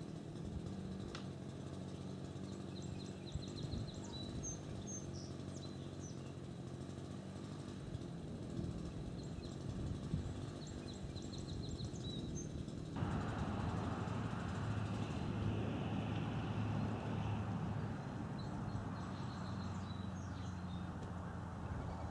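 Outdoor ambience: birds chirping over a low, steady engine hum. About thirteen seconds in, a rushing noise comes up suddenly and stays.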